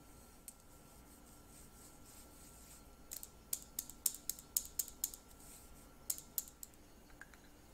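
A fine-mesh metal sieve shaken and tapped to sift flour: a quick, uneven run of light clicking taps starting about three seconds in and lasting a few seconds.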